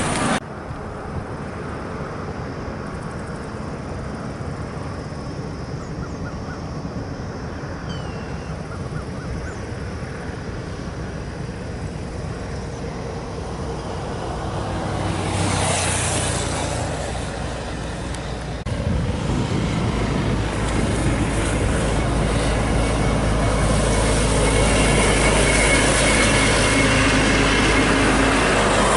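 Road traffic noise: a vehicle passes about 16 s in. After about 19 s there is a louder, steady low rumble of travelling along a highway at speed, with wind noise.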